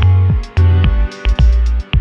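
Electronic dance music: a kick drum about twice a second under a deep bass line, with sharp hi-hat ticks and sustained synth chords.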